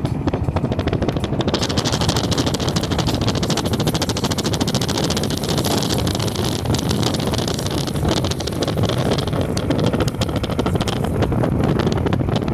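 Steady rumble and wind noise of a moving car, with a higher hiss that comes in about a second and a half in.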